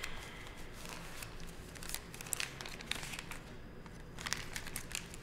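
Paper banknotes rustling and crinkling as they are handled and counted out by hand, a string of soft, irregular crackles.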